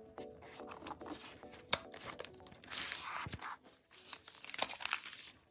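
Cardboard and plastic packaging of an Apple Magic Keyboard box being torn open and rustled by hand: a sharp click a little under two seconds in, then two longer stretches of tearing and crinkling.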